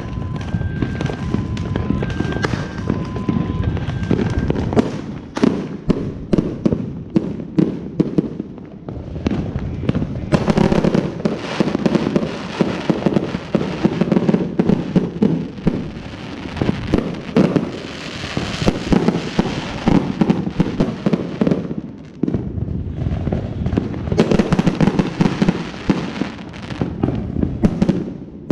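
Neighbourhood fireworks going off continuously: dense, overlapping cracks and bangs with the deeper booms of aerial shells bursting. A two-note beeping alternates through the first few seconds.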